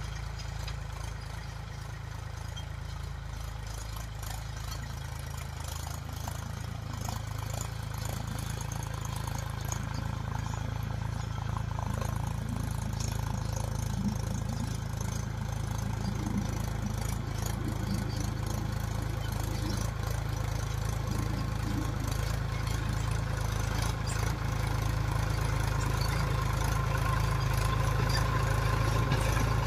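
Mahindra tractor's diesel engine running steadily under load, pulling a cultivator through dry soil. It grows gradually louder as the tractor comes closer.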